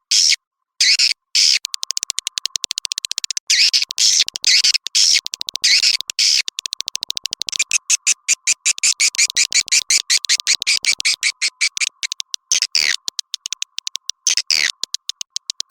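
Swiftlet lure recording: rapid runs of high, chittering swiftlet chirps and clicks, many per second, over a faint steady tone. It is the kind of call played from a swiftlet house to attract wild swiftlets to nest.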